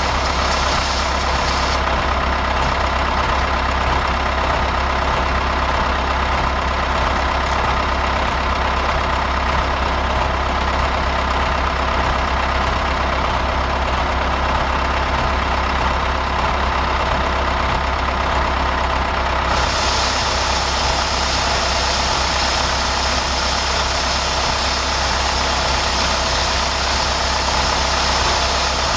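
Diesel tractor engine running steadily, with a hiss of higher-pitched noise coming in about two-thirds of the way through.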